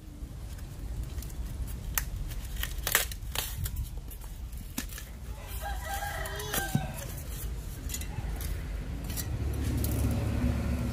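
A rooster crows once, a call of about a second and a half about six seconds in. Around it come scattered sharp clicks and rustles of paper and kindling being handled, and a low rumble rises near the end.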